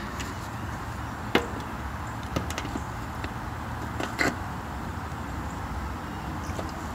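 A few sharp clicks and knocks from hands working on the air conditioner's condensing unit and meter, spaced a second or two apart, over a steady low background hum.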